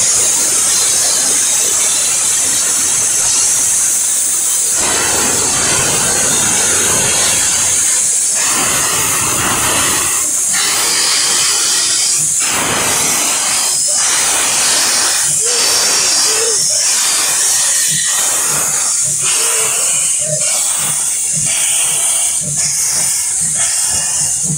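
Narrow-gauge steam locomotive blowing off a loud, steady hiss of steam low around its cylinders as it starts away. Its exhaust beats begin about a third of the way in and come quicker toward the end as the train gathers speed.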